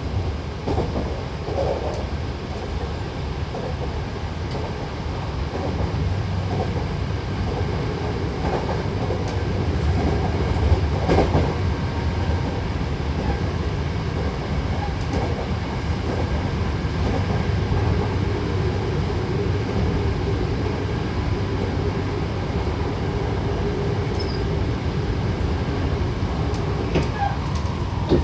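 Hankyu Takarazuka Line train running between stations, heard from inside the car: a steady rumble of wheels on rail with occasional short knocks.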